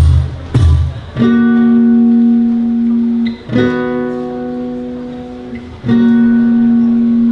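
A live band's song intro: two heavy drum hits in the first second, then guitar chords struck three times, each left ringing for about two seconds.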